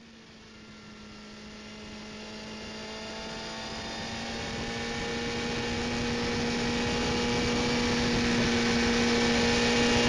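Steady drone of a vehicle engine at cruising speed, with a low hum and a few steady tones above it, fading in from silence and growing steadily louder.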